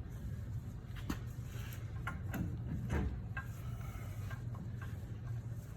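Scattered metallic clicks and knocks of tools and parts being handled during a wheel hub and brake job, over a steady low hum.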